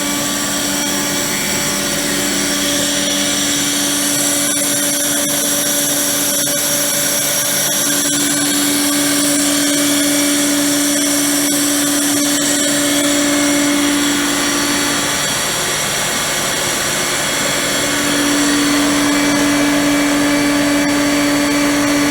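Ingersoll Rand ML7.5 7.5 kW rotary screw air compressor running, a steady machine drone with a strong hum and a high whine. The hum fades for a few seconds past the middle, then comes back.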